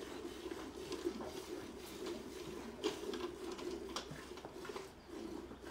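Hand milking of a Gir cow: streams of milk squirting steadily into a stainless steel bucket, with a few light clicks.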